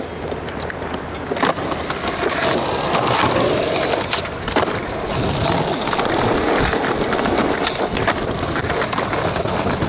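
Skateboard wheels rolling on rough asphalt, with a few sharp wooden clacks of the board popping and landing tricks.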